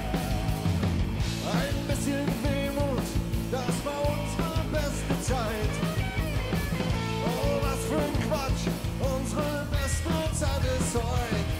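Live recording of a band playing an upbeat rock-style song with a steady drum beat, guitar and a sung melody.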